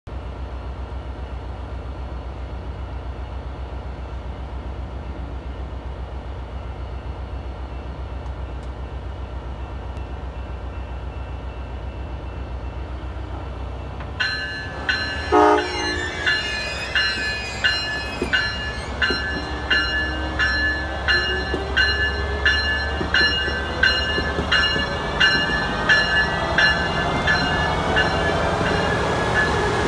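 Amtrak Siemens Charger diesel locomotive idling with a steady low hum. About halfway through, its horn gives a short toot and its bell starts ringing in steady strokes. A whine rises in pitch as the train pulls away.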